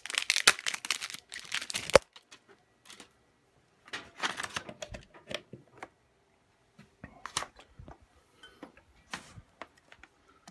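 Handling noise: bursts of rustling and sharp clicks in several short clusters with quiet gaps between, as a power cord is handled at the back of a computer.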